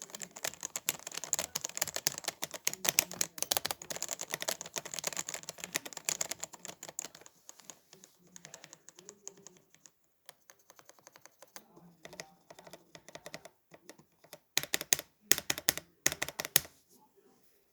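Typing on a mechanical keyboard with stock, unmodified Outemu Red linear switches: rapid keystroke clacks, dense for the first several seconds, then sparser, with a few quick bursts near the end.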